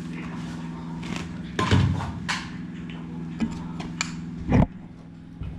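A few sharp metal clicks and knocks from door lock hardware being fitted and tightened, the loudest about a second and a half and four and a half seconds in, over a steady low hum.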